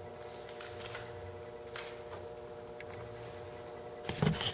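A steady hum of several pitches with a few faint clicks and rustles of hands working at the bench, then a louder knock and rustle near the end as the camera is handled.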